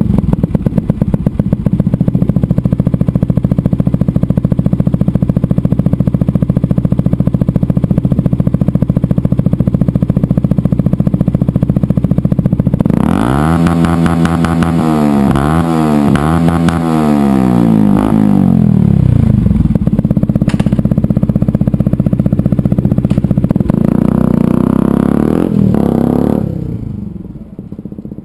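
Yamaha WR125X's single-cylinder four-stroke engine, fitted with an Akrapovič exhaust, idling steadily. About halfway through it is revved in several quick blips and one longer rev, then settles back. Near the end the sound falls away as the motorcycle pulls off.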